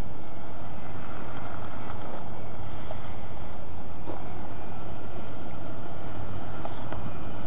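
A car driving slowly and turning toward the microphone, its engine and tyres heard over steady wind noise on the microphone.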